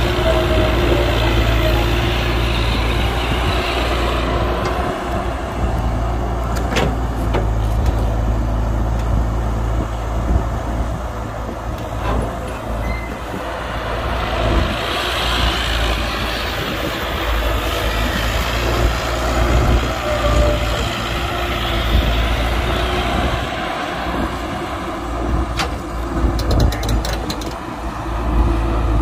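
Heavy diesel machinery running steadily at a dig site: an excavator working beside a dump truck, with a deep engine drone under a wide mechanical rumble. A few sharp knocks come through, with a quick run of clicks near the end.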